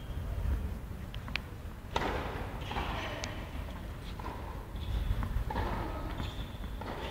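A tennis ball bounced on an indoor hard court before a serve: a few dull thumps over the steady low rumble of the hall.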